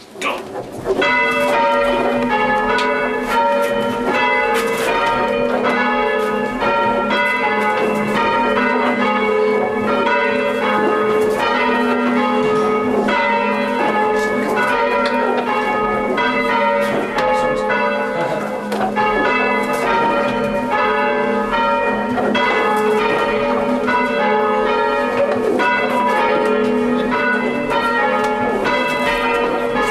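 Church bells rung full-circle by hand on ropes, change ringing in a steady even rhythm of strikes that starts about a second in. Heard from inside the ringing chamber below the bells.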